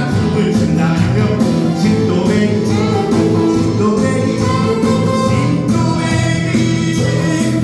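A male singer sings a Korean trot song live into a microphone over an amplified backing track with a steady beat, while the audience claps along.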